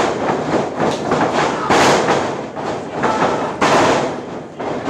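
Two loud impacts of wrestlers' bodies hitting the ring, about two seconds apart, over a crowd's noise in a hall.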